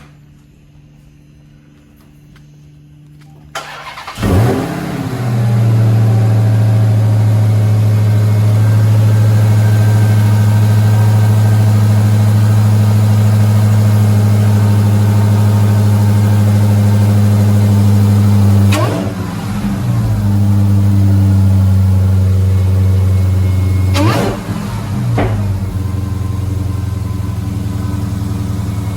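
2020 Dodge Charger Hellcat's supercharged 6.2-litre Hemi V8, fitted with a Legmaker carbon fiber cold air intake, cranking and firing up about three and a half seconds in with a rev flare, then settling into a loud, steady idle. It is blipped briefly twice, near the two-thirds mark and again a few seconds later.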